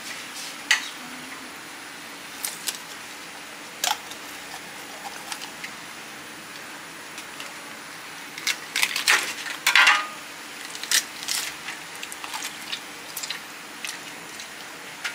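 Scattered clicks and clinks of a knife and hands against a round metal tray while a whole fish is slit open and gutted, with a busier run of clinks just after the middle.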